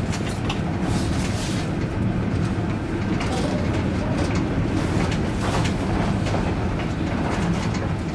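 Funicular car running along its track: a steady low rumble of the wheels on the rails, with scattered clicks and knocks.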